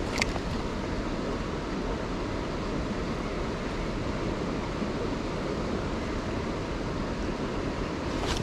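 Steady rushing of a flowing river, mixed with wind buffeting the microphone, with a single short click just after the start.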